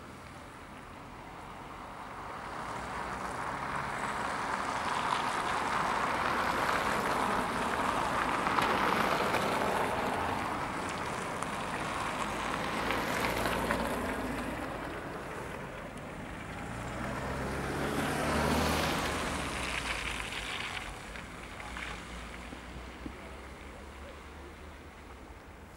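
Cars passing on a wet, slushy road, their tyre noise swelling and fading; one passes close about eighteen seconds in with a falling engine note.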